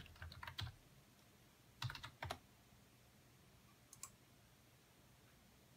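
Typing on a computer keyboard: a quick run of keystrokes in the first second, two or three louder key presses about two seconds in, then a single faint click near four seconds.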